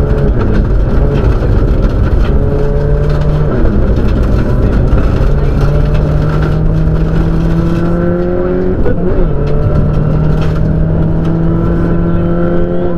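Subaru Impreza rally car's turbocharged flat-four engine heard from inside the cabin, pulling hard with its pitch climbing in long sweeps, broken by gear changes about three and a half seconds and nine seconds in. A steady low rumble of tyres on gravel runs underneath.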